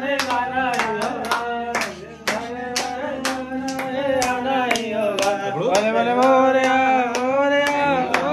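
Several people clapping their hands together in a quick, steady beat along with a sung devotional song to Lord Ganesh; the singing swells and holds a long note near the end.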